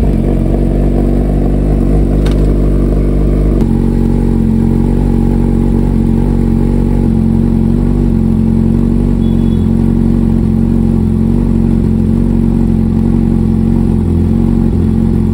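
Suzuki Hayabusa's inline-four engine idling steadily, its note shifting slightly about three and a half seconds in.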